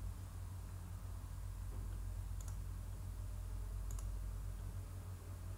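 Two sharp computer mouse clicks, about a second and a half apart, over a steady low electrical hum.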